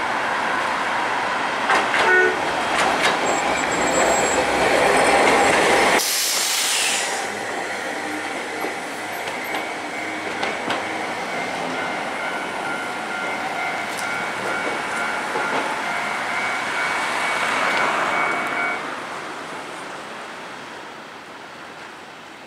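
Hankai Tramway tram Mo 704 running on street track. It gets louder as it comes near, with the rumble of wheels and running gear. It then runs away through a curve with a steady high-pitched wheel squeal, which fades as the tram moves off.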